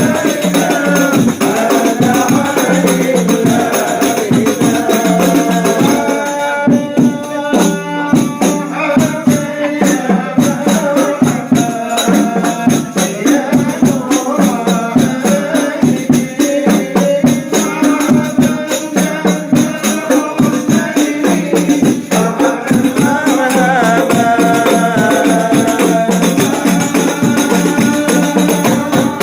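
Group of voices chanting devotional songs in unison over a steady rhythm of hand-struck frame drums, typical of the sholawat singing at a Maulid gathering.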